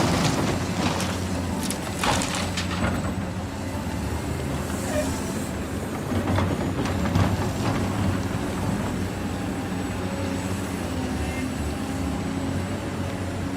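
Radio-controlled construction machinery running, a steady mechanical hum with short bursts of hissing or scraping noise at the start, about two seconds in, and again around five and seven seconds in.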